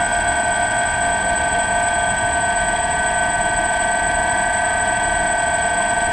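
DJI Phantom quadcopter's motors and propellers running with a steady, unchanging whine.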